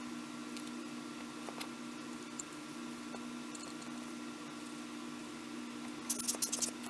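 Small parts of a disassembled compact camera being handled: a few faint light clicks over a steady low hum. About six seconds in, loud scratchy rubbing starts against the camera parts.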